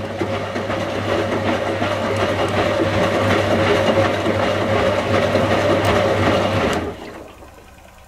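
1985 Indesit 822 washing machine turning its drum on a wash tumble: a steady motor hum under the churning of wet laundry in the drum, which cuts off sharply about seven seconds in as the drum stops.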